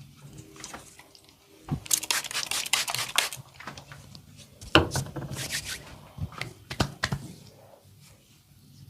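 Massage hands working over hair and skin: a quick run of crisp rubbing strokes about two seconds in, then one sharp knock, the loudest sound, near five seconds, followed by a few lighter taps.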